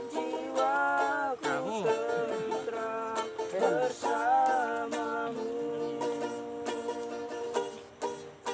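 Strummed acoustic string instrument accompanying a voice singing a slow song, with long held notes.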